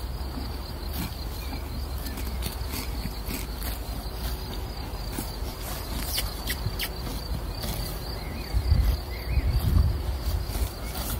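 Insects chirping in a steady, high, pulsing drone, with horses cropping and chewing grass as scattered short crunching clicks. A few louder low rumbling thumps come near the end.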